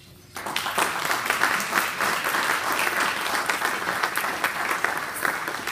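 Audience applauding, a dense patter of many hands clapping that starts a moment in and keeps on steadily.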